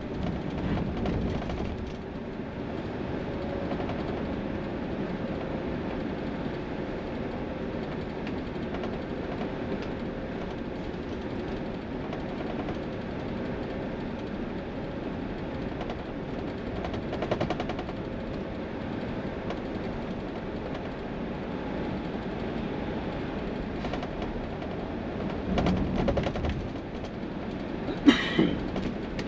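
Highway traffic passing: a steady rumble of heavy vehicles with louder pass-bys about midway and shortly before the end. A short, sharp bang near the end.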